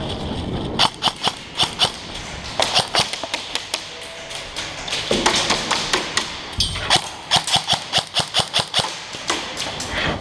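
Airsoft guns firing quick single shots, several a second, in three bursts with pauses between them.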